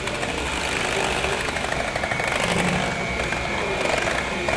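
Electric mixer motor running steadily, beating whole eggs with sweetener at medium speed.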